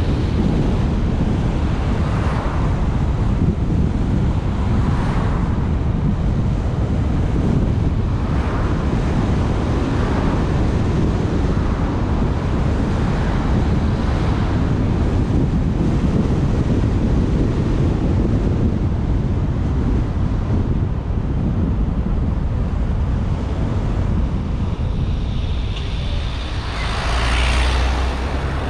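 Road and wind noise from a car driving along a city street: a steady low rumble, with oncoming cars passing every few seconds and the loudest pass near the end.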